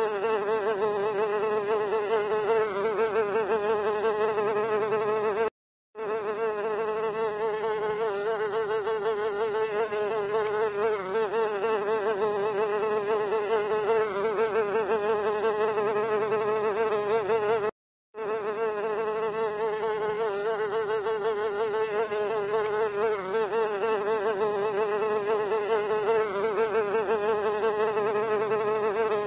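A fly buzzing: a steady, slightly wavering wing drone that cuts out for a moment twice, about six and eighteen seconds in.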